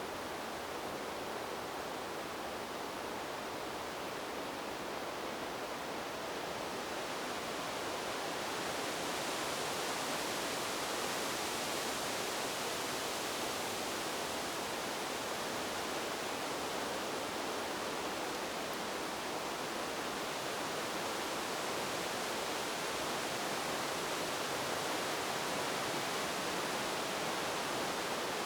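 Wind blowing through trees, the leaves rustling in a steady rush that swells a little about eight seconds in and stays up.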